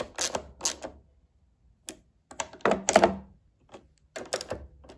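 Small ratchet clicking in short runs as a socket snugs down the nuts on a lawnmower's air filter base plate. There are three runs of rapid clicks with short pauses between them.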